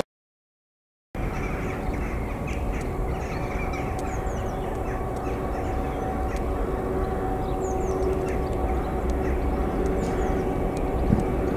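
About a second of silence, then the two-stroke EMD V16 diesel engine of a Class 59 locomotive hauling loaded stone hoppers, a steady drone growing slowly louder as it approaches, with small birds chirping over it.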